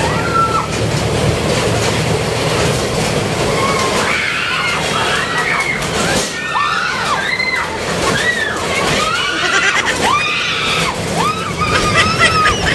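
Horror-train dark ride in its tunnel: a steady rumble of the running train, and from about four seconds in, many overlapping high shrieks that rise and fall.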